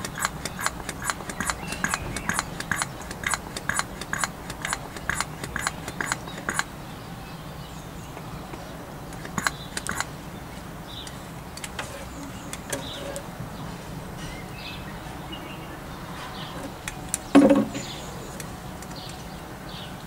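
Rapid, even clicking, about two or three clicks a second, which stops about six and a half seconds in. Afterwards there are only a few faint short chirps and one brief louder knock near the end.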